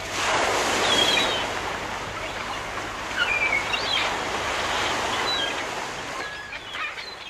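Surf washing on a shore, swelling in the first second and fading away near the end, with short chirping bird calls scattered over it, as the song's music dies out.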